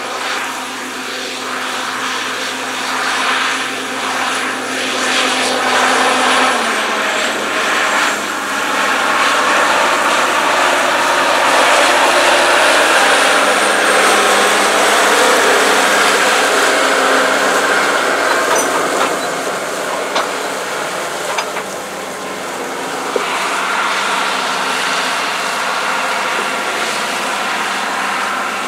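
Case IH 9370 Steiger's diesel engine running steadily under load as the tractor pulls a disk ripper through corn stubble. It swells louder through the middle as the tractor comes closer, then eases off.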